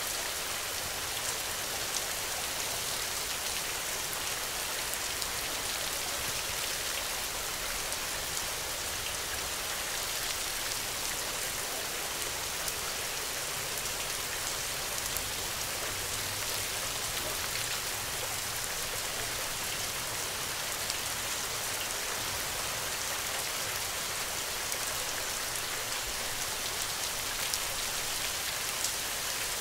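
Steady rain falling: a dense, even hiss with many small drop ticks scattered through it.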